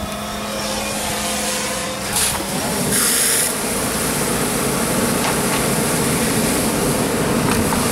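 A steady engine hum under a hoseline. About two and a half seconds in, a 7/8-inch smooth-bore hose stream flows into the burning room as a steady rush of water, with a brief sharp hiss just after it starts.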